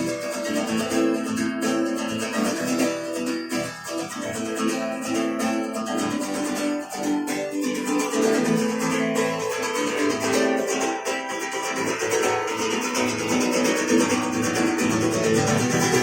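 Instrumental guitar music, strummed and plucked, playing steadily as the song's closing instrumental section.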